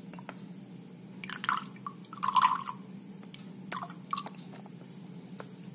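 Pulpy guava fruit drink poured from a spouted plastic pouch into a glass, splashing in three short irregular spurts, the loudest about two and a half seconds in.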